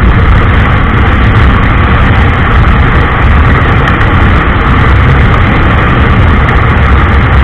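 Loud, steady wind rush buffeting the microphone on a Honda SP 125 motorcycle ridden flat out on a top-speed run, with the single-cylinder engine running under it.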